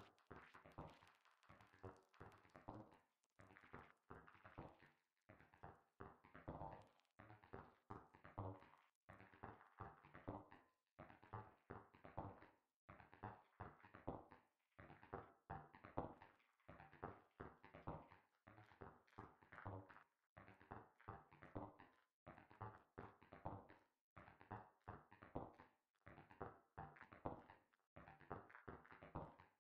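Faint looping minimal-house groove of short, clicky synthesized percussion hits with pitched tones, repeating in a regular pattern. It is run through the Glitchmachines Fracture buffer-repeat glitch effect, whose settings are being adjusted as it plays.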